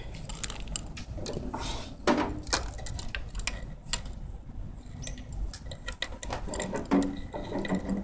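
Irregular clicks, taps and light rattles of equipment being handled close to the microphone, over a low steady hum.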